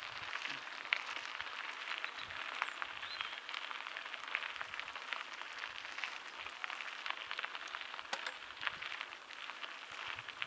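Mountain bike rolling along a dirt trail: a steady crackle of tyres on the loose surface, full of small clicks and rattles.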